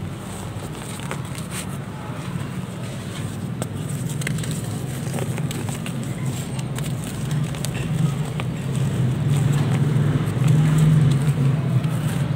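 Dried mud chunks crunching and crackling as a hand squeezes and crumbles them, with scattered small cracks. The mud is a little damp inside, so it breaks with difficulty. A steady low hum runs underneath and grows louder toward the end.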